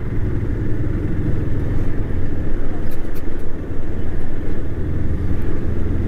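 City road traffic, cars and motorcycles going by, heard as a steady low rumble.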